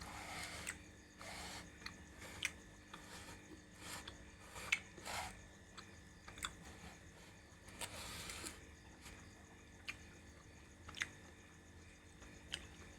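A person chewing curry with ostrich meat close to the microphone: wet mouth smacks and sharp clicks at irregular intervals, every second or so.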